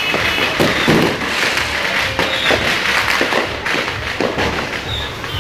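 Fireworks and firecrackers going off, an irregular string of bangs and thuds over a continuous crackling hiss.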